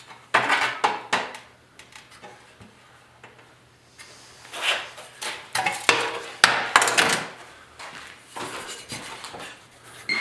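Hand snips and pliers working thin strip steel: bursts of metallic clicks, snips and clatter. There are a few near the start and a denser run a few seconds in, over a faint steady hum.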